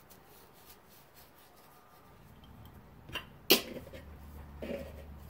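Handling a small glass spice jar: quiet at first, then a couple of light clicks and one sharp click about three and a half seconds in, followed by a faint low hum.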